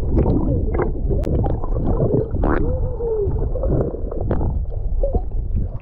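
Underwater sound picked up by a submerged action camera: a heavy low rumble of water moving against the housing, with gurgling and warbling, muffled tones that bend up and down. It cuts off abruptly at the end as the camera leaves the water.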